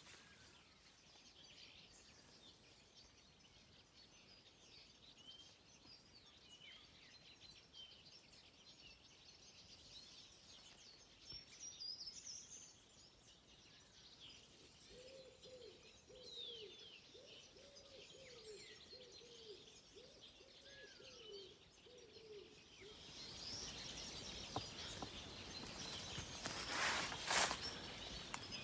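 Wild birds chirping and singing, with a lower-pitched bird repeating short falling calls in the middle. Near the end a rushing noise comes up, with one loud gust-like burst.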